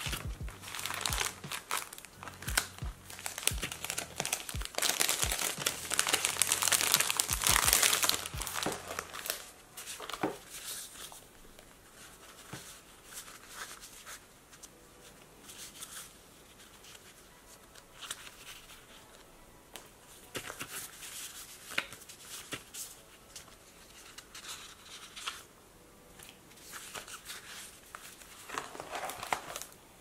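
Paper pages in clear plastic sleeves of a ring binder being flipped through, a loud crinkling rustle with sharp clicks for the first eight or nine seconds. After that come softer, scattered rustles and taps of stiff paper prints being handled.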